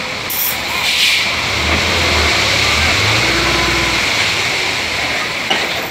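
Diesel engine of a ten-wheel dump truck running and pulling its trailer slowly forward while the trailer's raised tipper bed unloads crushed rock; the engine rumble swells for a couple of seconds in the middle, over a steady rushing hiss.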